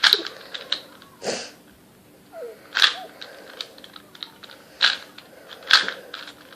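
Plastic 2x2 speed cube being turned by hand: a few sharp clacks at irregular intervals, with lighter clicks in between.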